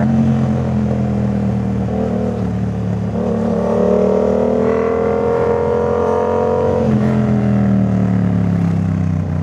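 Yamaha MT-07 parallel-twin engine running through a full aftermarket Jeskap exhaust as the bike is ridden. The engine note climbs in pitch as it accelerates from about three seconds in, holds, then drops back about seven seconds in.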